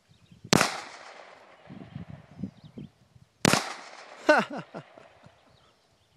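Two shots from a Springfield 1911 pistol, about three seconds apart, each a sharp crack with a short echo. Just under a second after the second shot comes a brief sound that falls in pitch.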